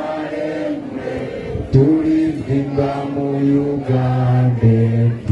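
A group of people singing a slow song together in unison, holding each note long, with the melody stepping down to lower notes near the end.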